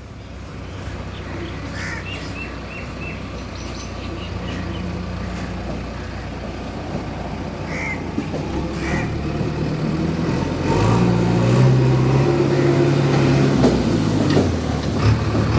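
Heavy diesel engine of road-works machinery running and growing louder, loudest from about eleven seconds in. Short bird calls come over it a few times in the first half.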